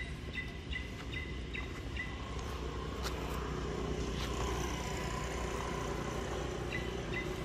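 A vehicle engine running, a steady low rumble that grows louder about two and a half seconds in. A string of short, evenly spaced high chirps sounds over it at the start and again near the end.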